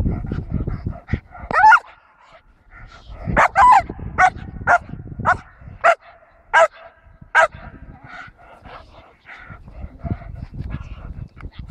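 Young German shepherd barking in a rapid, excited series of high, sharp barks, with a steady whine between them.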